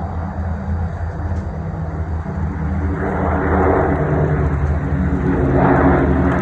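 Piston engines of Second World War propeller aircraft droning in a flypast, a steady deep multi-toned hum that grows louder and fuller about three seconds in.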